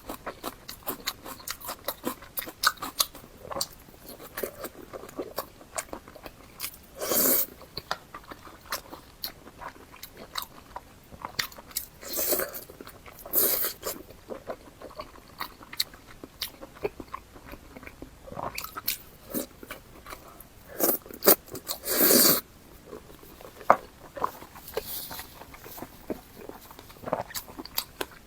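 Close-miked mouth sounds of a person eating: wet biting and chewing with many small sharp clicks, and a few louder half-second sounds scattered through.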